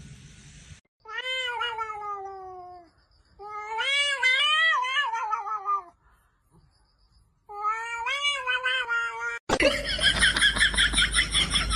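A cat giving three long, drawn-out yowling meows, each about two seconds long, with the pitch wavering and falling. Near the end a louder, noisier sound cuts in suddenly.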